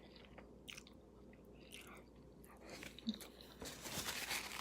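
A person chewing a mouthful of baked pasta close to the microphone, with small wet mouth clicks. The chewing grows louder and busier about three and a half seconds in.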